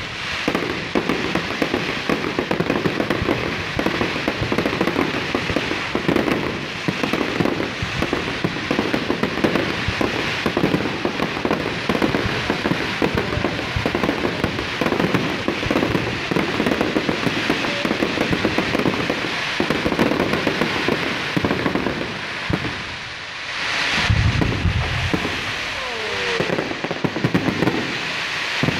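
A fireworks display with rapid, continuous crackling and banging, many reports running together. After a short lull there is a heavy low boom about 24 seconds in, and a few thin whistles near the end.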